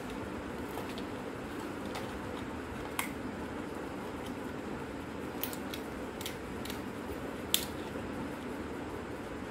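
Scattered small plastic clicks and snaps, six or so, as an old camera's plastic body and circuit board are handled and pried apart; the sharpest click comes near the end. A steady hum runs underneath.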